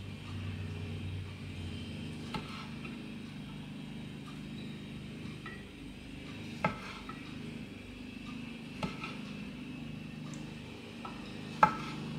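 Kitchen knife cutting cherry tomatoes on a wooden cutting board: four sharp knocks of the blade meeting the board, the loudest near the end, over a steady low hum.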